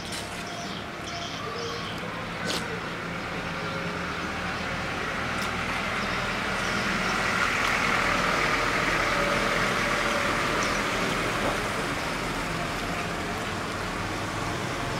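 A road vehicle passing: a rush of noise that rises to a peak about halfway and then slowly fades, over a steady low hum. A couple of sharp clicks sound near the start, likely a metal spoon against the tray.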